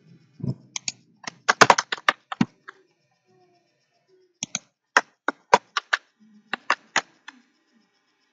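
Computer keyboard keys being pressed: a quick cluster of clicks about one to two seconds in, then a run of separate keystrokes between about four and seven seconds in, as code is edited.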